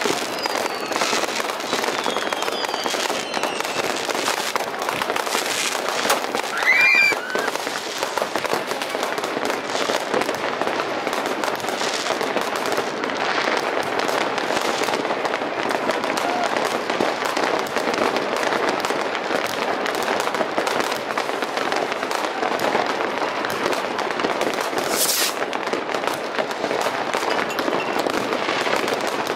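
Many fireworks and firecrackers going off at once in a dense, unbroken crackle of pops and bangs. Thin falling whistles come in the first few seconds, and a louder whistling burst comes about seven seconds in.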